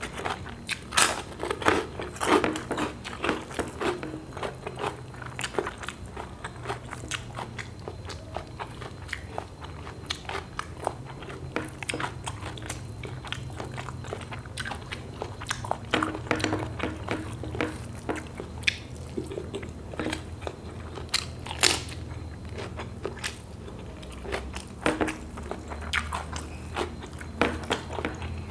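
A person chewing and crunching food close to a clip-on microphone: wet chewing broken by irregular crisp crunches and mouth clicks, over a steady low hum.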